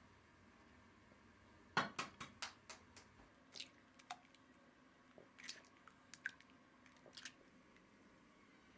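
Eggshells cracking and small taps against an enamel basin as eggs are broken into flour: a quick run of sharp clicks about two seconds in, then scattered single taps, in a quiet room.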